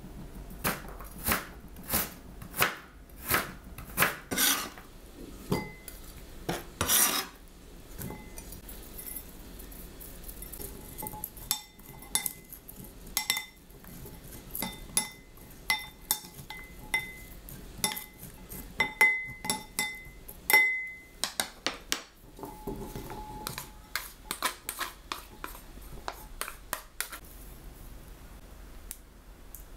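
A knife cuts kohlrabi on a cutting board in repeated strokes, about two a second, for the first several seconds. Then wooden utensils toss the cut kohlrabi strips in a ceramic bowl, clinking against the bowl with brief ringing tones, and the taps grow fainter near the end.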